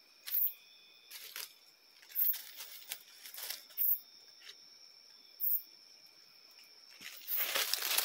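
Dry leaves and brush crunching and rustling underfoot and against the body, in scattered crackles that thicken into steady, louder crunching near the end. Behind it, night insects trill steadily on several high notes.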